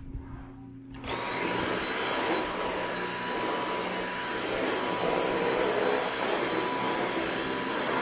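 Dyson cordless stick vacuum switched on about a second in, then running steadily: a steady rush of airflow with a thin whine over it.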